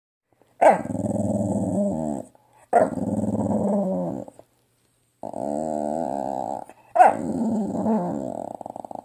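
Staffordshire Bull Terrier giving four long, drawn-out growling grumbles, most of them opening with a sharp high note that drops into a low rumbling growl. It is playful, silly grumbling, not aggression.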